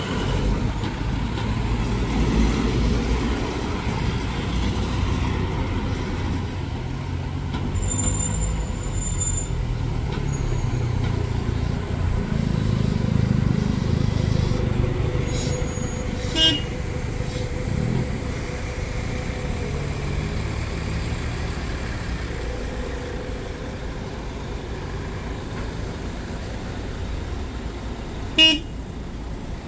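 Setra S 315 GT-HD coach's diesel engine running as the coach drives slowly past and pulls up, with other traffic around it. Short horn toots sound about sixteen seconds in and near the end, and another brief sharp sound about six seconds in.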